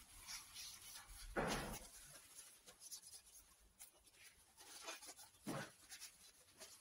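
Faint rubbing and rustling of a cloth wiped along a bicycle frame's painted metal tubes, degreasing it before priming. A louder handling noise comes about a second and a half in, and a smaller one about five and a half seconds in.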